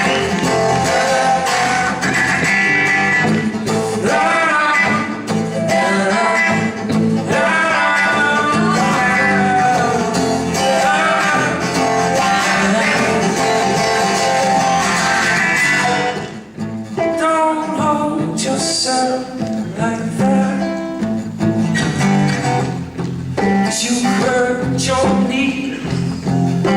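Live folk song on strummed and plucked acoustic guitar, with singing.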